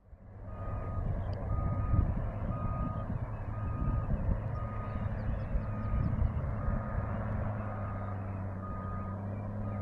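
A truck's reversing alarm beeping about once a second over the steady running of a coal haul truck's engine.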